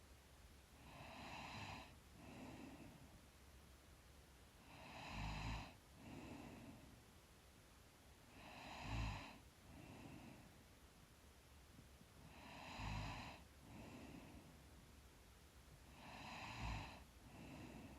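A sleeping woman breathing slowly and evenly, about one breath every four seconds, with a short low snore in each breath.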